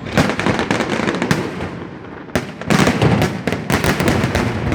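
A fireworks display: many shells bursting in quick succession, bangs mixed with crackling, growing denser and louder about two and a half seconds in.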